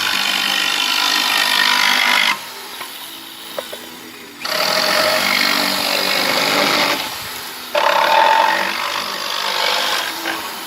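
Jigsaw cutting through the top of a 2x4 post: the blade's rasp is loud for two or three seconds at a time, three times, with quieter stretches between where the motor keeps running.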